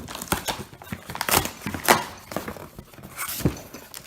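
Irregular knocks, scrapes and rustles of a cardboard shipping box and its packaging being handled for unboxing.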